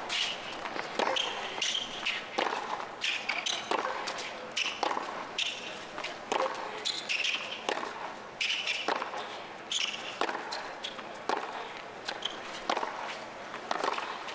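A tennis rally on a hard court: the ball is struck back and forth by racquets and bounces on the court, a sharp hit or bounce about every half second to second, with short high-pitched sounds between the hits.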